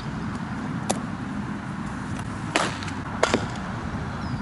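Steady outdoor background noise with a few sharp knocks from softball infield practice, a bat hitting a ground ball toward the shortstop; the loudest knock comes about two and a half seconds in, with a quick double knock just after.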